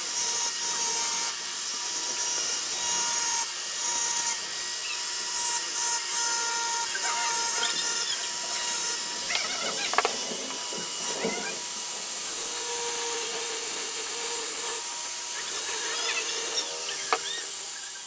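Small handheld rotary tool running with a steady whine while its burr bit grinds into a glass bottle, a gritty hiss that grows and eases in patches as the bit is pressed on and lifted.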